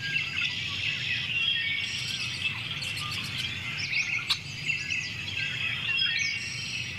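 Many birds chirping and calling together: a dense, steady chorus of overlapping short chirps and quick whistled sweeps, with a single sharp click about four seconds in.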